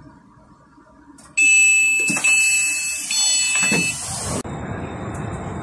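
Passenger train's door-closing warning: a loud steady electronic beep with a hiss of the door mechanism and a few knocks as the doors close, starting about a second and a half in and cutting off suddenly about three seconds later. A steady low rumble of the train follows.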